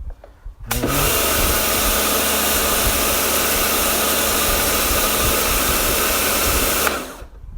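Karcher K2 electric pressure washer's motor and pump starting as the trigger is pulled, running steadily with a loud hiss of the high-pressure water jet against a surface, then cutting off abruptly when the trigger is released.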